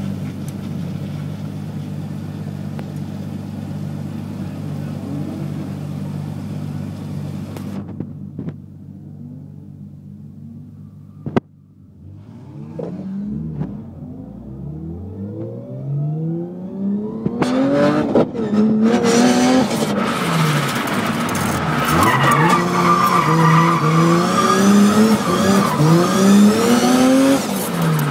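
Nissan Skyline drift car heard from inside the cabin: the engine idles steadily, drops away for a few seconds with a single sharp click, then revs up and down repeatedly as the car gets going. From about two-thirds of the way in, tyre squeal joins the rapidly rising and falling revs as the car drifts.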